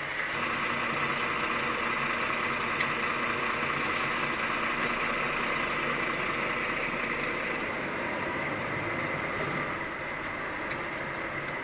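Volvo articulated lorry's diesel engine heard from inside the cab, running steadily as the lorry creeps forward at low speed. It eases a little about ten seconds in.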